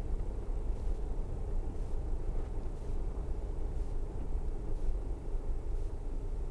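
A car's engine and tyres heard from inside the cabin on a slow drive: a steady low rumble with a faint constant hum.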